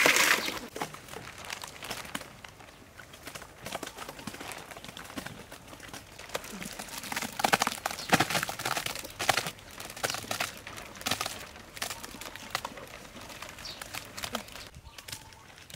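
Gloved hands scooping and squeezing wet, mushy stomach contents out of a large animal stomach: irregular wet squishes and scrapes, busiest around the middle, with plastic sheeting crinkling.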